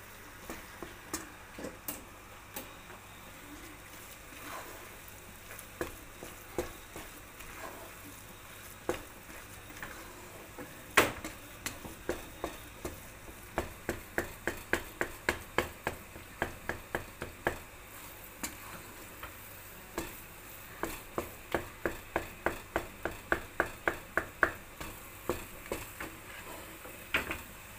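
Wooden spatula stirring thick, sticky ube glutinous rice (biko) in a nonstick pan: soft scraping broken by runs of quick taps against the pan, about three or four a second, with one louder knock about eleven seconds in.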